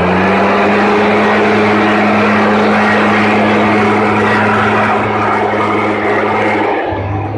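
Leaf blower running steadily at high speed, its engine holding one steady pitch over the rush of air. Near the end the engine drops to a lower pitch as the throttle is let off.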